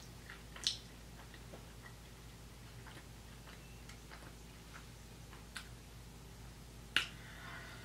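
Quiet stretch with a few faint, sharp clicks spaced seconds apart, over a low steady hum.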